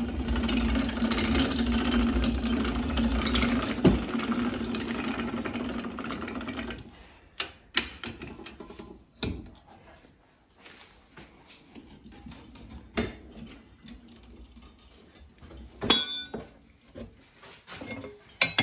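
A small motor hums steadily, then cuts off about seven seconds in. Scattered metal knocks and clinks follow as heavy Aga range-cooker parts are lifted out and handled during its service.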